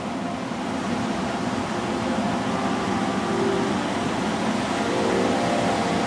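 Steady roar of Pacific Ocean surf breaking on the beach, an even wash of noise with no distinct strokes.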